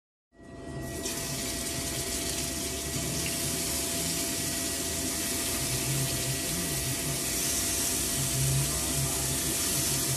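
Chicken pieces frying in a pan, a steady sizzle that cuts in abruptly just after the start.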